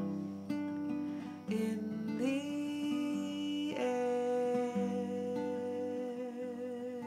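Acoustic guitar being played, with a woman's wordless vocal line over it: a note that slides up about two seconds in, then a long held note wavering with vibrato from about four seconds in.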